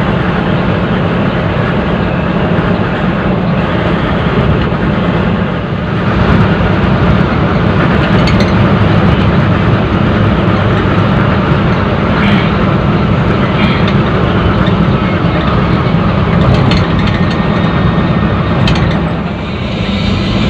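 Cabin noise of a Mercedes-Benz 1626 coach's diesel engine running at highway speed: a steady low drone mixed with tyre and wind noise.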